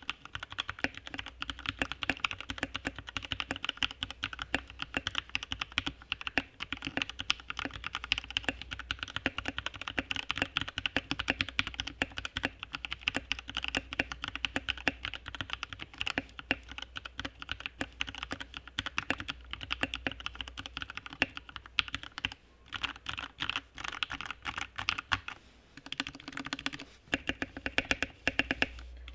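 Typing on a VortexSeries VX5 60% mechanical keyboard: a fast, continuous stream of key clacks with two short pauses near the end.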